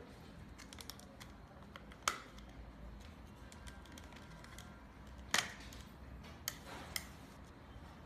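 Plastic camping lantern and its wire handles being handled: light clicks and taps, a sharper knock about two seconds in, the loudest knock a little past halfway, then two short clicks.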